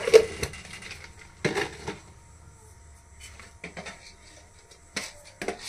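A few sharp clinks and knocks of kitchen handling at a steel cooking pot. The loudest comes right at the start, another about a second and a half in, and lighter taps follow later.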